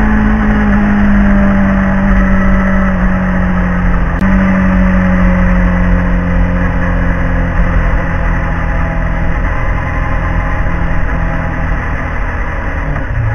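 Motorcycle engine running under way with steady wind and road rush; the engine note sinks slowly and steps up briefly about four seconds in, then dips and rises again near the end.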